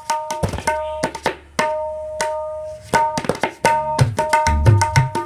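A 5.25-inch neem-wood tabla with a brass bayan being played. Ringing, clearly pitched strokes on the small drum mix with deep bass strokes on the bayan. The strokes are spaced at first and pick up into a fast, dense rhythm about three seconds in.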